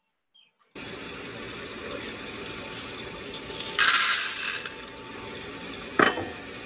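Freshly roasted coffee beans poured from a perforated metal roaster chamber into a plastic tray on a scale: a rattling pour lasting about a second, over a steady background hiss. A single sharp knock follows about two seconds later.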